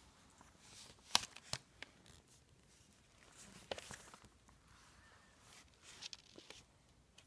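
Faint rustling of notebook paper being handled, with a few short light clicks and taps scattered through, the sharpest about a second in.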